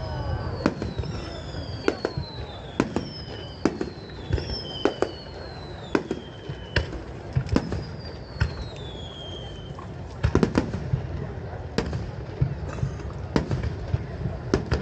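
Fireworks going off: a rapid run of sharp cracks and bangs, with about six whistles that each fall in pitch over roughly a second, mostly in the first two-thirds.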